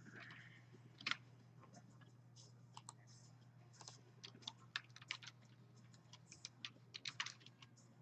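Faint typing on a computer keyboard with mouse clicks, in irregular short clicks that come thicker a little past the middle and again near the end.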